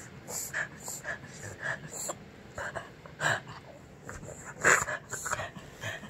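Small terrier coughing in a string of short bursts, two or three a second, the loudest about three-quarters of the way through.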